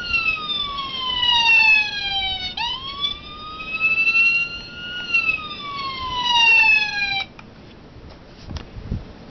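Small electronic siren module in a 1/24-scale diecast police Tahoe model playing a wail: the tone slowly rises and falls twice, then cuts off suddenly about seven seconds in. A few faint clicks and knocks follow.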